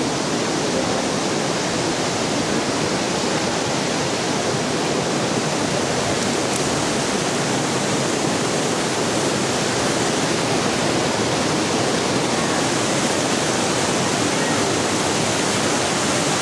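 Ditumabo Falls pouring steadily: a constant, even roar of falling water.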